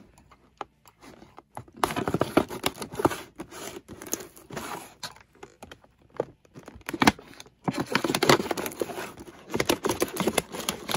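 Clear plastic toy packaging crinkling and crackling under the hands, with some tearing, as the box is worked open. Sparse at first, then two longer stretches of dense crinkling, one about two seconds in and one about three seconds before the end.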